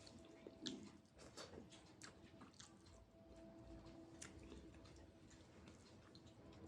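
Faint chewing with soft, wet mouth clicks: a person eating rice and daal. A faint steady hum runs underneath.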